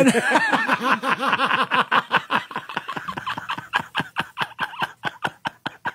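A man laughing hard into a studio microphone: a voiced laugh, then a long run of quick breathy bursts, several a second.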